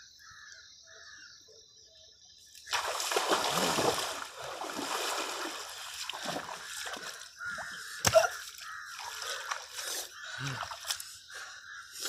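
Shallow river water splashing and sloshing as a person wades quickly through it, starting suddenly about two and a half seconds in, with a sharp knock near the middle.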